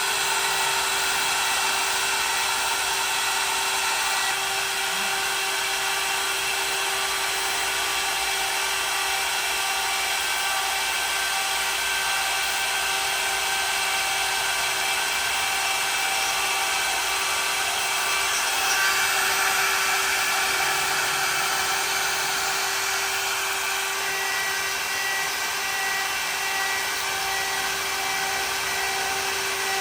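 CNC router spindle running with a steady high-pitched whine.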